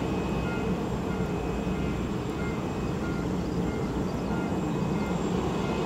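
Airport apron noise: a steady low rumble of a parked jet and ground-support machinery running, with short electronic beeps repeating now and then.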